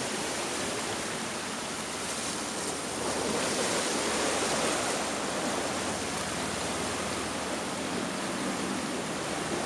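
Ocean surf washing over a rocky shoreline: a steady rush that swells a little a few seconds in and then eases.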